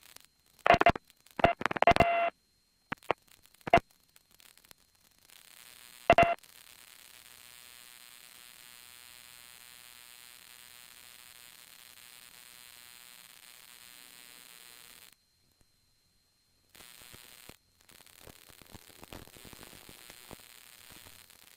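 Radio static and hum: a few short, loud crackling bursts in the first seconds, then a steady buzzing hiss that cuts off suddenly about fifteen seconds in, with fainter crackle near the end.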